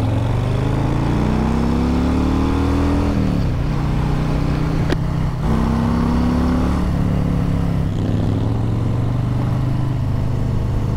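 Harley-Davidson Breakout's V-twin running through a Jekill & Hyde exhaust with its valve open (Hyde mode), pulling through the gears. The engine note rises, drops at a shift about three seconds in, climbs again after another shift about five seconds in, then settles lower about eight seconds in and runs steady.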